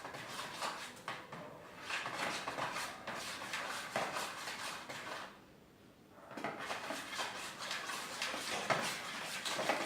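Clinking, tapping and scraping of utensils and containers while slime ingredients are handled, with a short lull about five seconds in.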